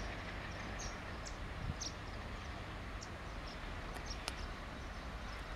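Steady low rumble of twin WDM-3A ALCo diesel locomotives approaching at speed in the distance, with scattered short high chirps over it.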